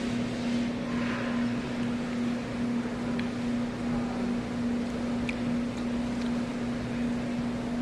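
Steady mechanical hum: one held low tone over a faint even hiss, with a few faint ticks.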